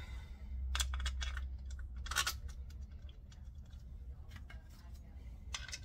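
Light clicks and scrapes of small screws and a plastic scorecard holder being handled as the screws are started by hand into a golf cart's steering wheel hub, over a low steady hum.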